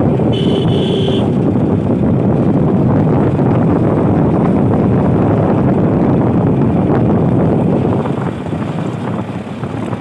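Steady, loud rush of wind buffeting the microphone and tyre noise from a vehicle driving on a paved road, recorded from outside by the front wheel. A vehicle horn sounds briefly about half a second in.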